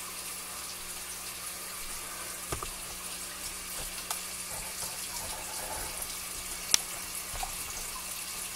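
Steady splash and trickle of water from aquarium filtration running in a room of fish tanks, over a constant low hum. A few light knocks, and one sharp click about two-thirds of the way through.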